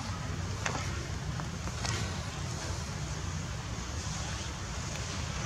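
Steady low outdoor rumble with two brief sharp clicks, about one and two seconds in.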